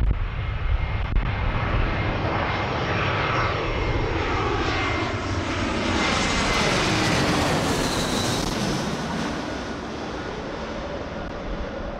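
Eurowings Airbus A319-132 with IAE V2500 turbofan engines passing low overhead on final approach, gear down: the jet noise swells, several tones slide down in pitch as it passes, loudest about seven seconds in, then fades as it flies away.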